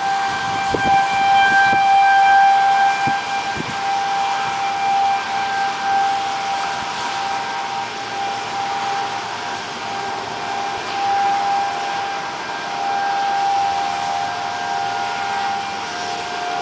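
Outdoor tornado warning siren sounding one steady wail with a few overtones, swelling and fading slightly.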